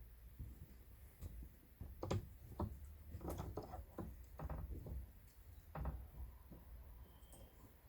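A series of irregular light knocks and taps, clustered in the middle, over a low background rumble, from materials being handled during fence repair work.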